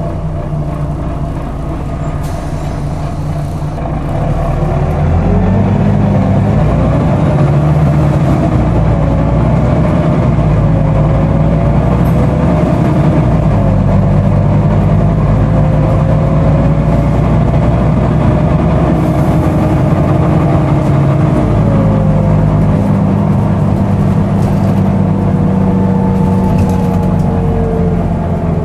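Volvo B9TL double-decker bus heard from the upper deck while under way: its six-cylinder diesel and drivetrain running, growing louder about five seconds in, together with the loud, hoover-like cooling fan and a whine that drifts up and down in pitch.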